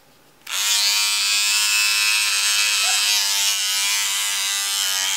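Small electric trimmer switched on about half a second in, buzzing steadily as it shaves the hair off a Biewer terrier puppy's ear flap, then switched off at the very end.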